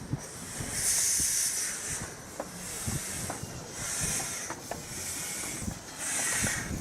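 Miniature steam locomotive, a half-scale replica of a Darjeeling Himalayan Class B engine, letting off steam in four loud hissing bursts at uneven spacing, with low rumbling and light knocks underneath.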